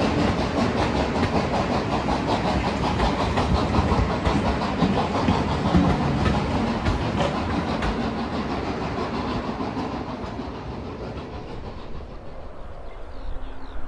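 Train of passenger coaches rolling past close by, the wheels clattering over the rail joints in a fast run of clicks. The clatter fades away over the last few seconds as the train draws off.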